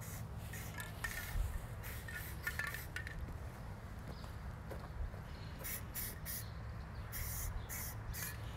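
Aerosol spray-paint can hissing in a string of short bursts as satin black paint is sprayed onto a car wiper arm, with a pause of a couple of seconds in the middle.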